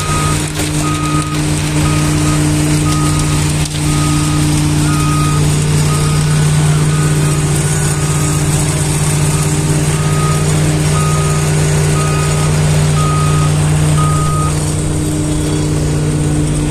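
Engines of a slipform kerb-laying machine and the concrete mixer truck feeding it, running steadily under load. A warning beeper sounds about once a second and stops a couple of seconds before the end.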